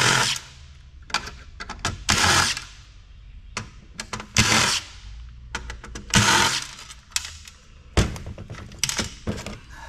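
Cordless impact driver running in four short bursts of about half a second each, backing screws out of a power board in a sheet-metal chassis, with small metallic clicks and clatter between the bursts. A sharp knock about eight seconds in.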